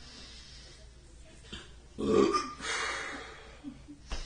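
A person makes a loud vocal sound about two seconds in, lasting about a second. A sharp click follows near the end.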